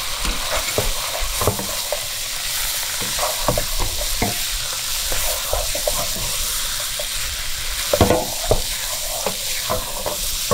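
Beef chunks and onions sizzling in hot oil in a metal pot while a wooden spoon stirs and scrapes them, sautéing the meat with turmeric and black pepper. Irregular scrapes and knocks of the spoon against the pot, the loudest about eight seconds in.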